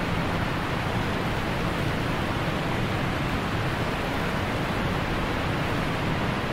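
Steady rushing noise of stormy surf, an intro sound effect, with a deep rumble underneath.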